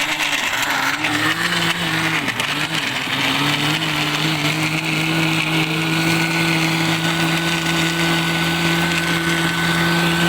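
Electric kitchen blender running, chopping peanut leaves and candlenuts. Its motor pitch wavers and dips for a second or two soon after the start as the load churns, then settles into a steady hum.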